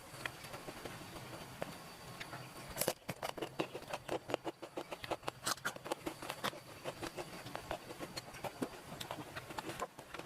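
A rapid, irregular series of sharp clicks and crackles starting about three seconds in, over a faint steady hiss.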